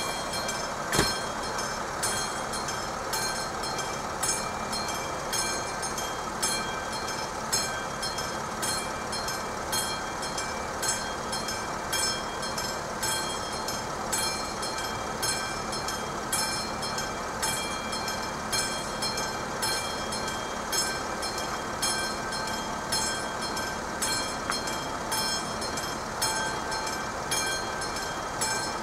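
Electromechanical warning bell of AŽD 71 level-crossing signals ringing in a steady, even rhythm of metallic strikes, each leaving a ringing tone. Underneath runs a steady rumbling noise.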